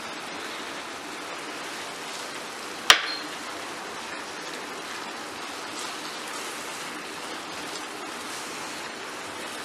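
Onion and poppy-seed paste mixture sizzling steadily in a frying pan, with a single sharp click about three seconds in.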